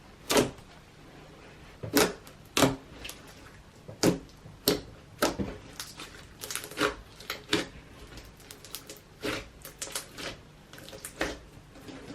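Thick homemade borax slime squished and stretched by hand, giving irregular sticky pops and clicks, about a dozen of them at uneven intervals.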